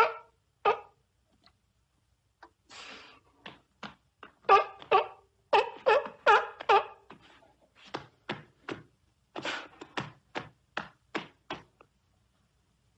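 Seal calling: a rapid, uneven series of short pitched barks and grunts, roughly two a second, with a brief pause about two seconds in.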